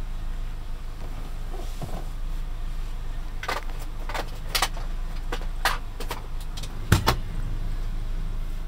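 A steady low hum with a run of short, sharp clicks and taps from equipment being handled. The loudest is a knock about seven seconds in.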